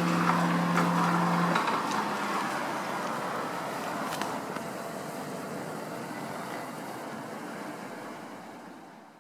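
The tail of a municipal disaster-prevention loudspeaker broadcast (NEC public-address system): the last chime tones and a steady hum cut off about a second and a half in. This marks the end of the 17:00 bar-chime melody. Steady outdoor background noise follows and fades out near the end.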